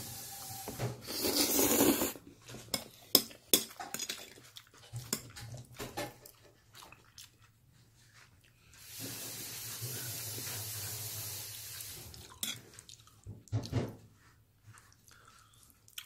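Eating sounds: a mouthful of black-bean-sauce ramen noodles slurped loudly about a second in, then chewing and chopsticks clicking and scraping on a ceramic plate. A second long, steady hiss-like stretch comes near the middle.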